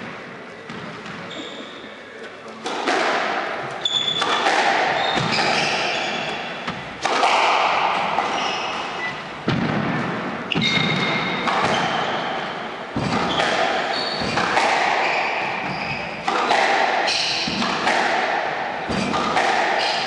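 Squash rally: the ball smacking off rackets and the court walls about every one to two seconds, each hit echoing around the court, starting a few seconds in. Short high squeaks of shoes on the wooden floor come between the hits.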